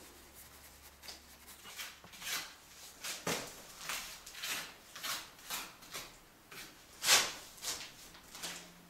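Hand rubbing and smoothing rehydrated clay over a patch in an old wall: a run of short scraping strokes, about two a second, with one louder stroke near the end.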